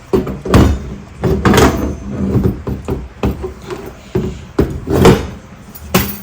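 Packaging and plastic prop parts being handled: irregular rustling and knocking as pieces are pulled out of a cardboard box, with several louder knocks.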